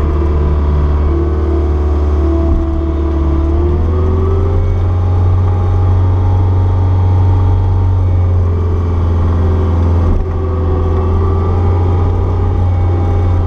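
Caterpillar 236B skid steer's diesel engine running under load while pushing snow, a steady low drone with a higher whine that rises in pitch about four seconds in and shifts again later as the machine works.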